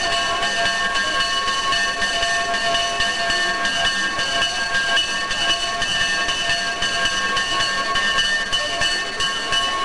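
Steady rain, with several steady high tones held unchanged together like a sustained chord.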